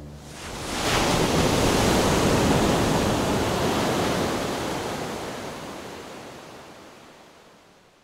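Ocean surf rushing: a wash of breaking waves that swells up in the first second and slowly fades away.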